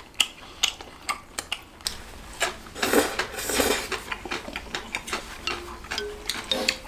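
Eating at a table: chopsticks clicking and scraping against dishes, with a louder stretch of noodle slurping and chewing about three seconds in.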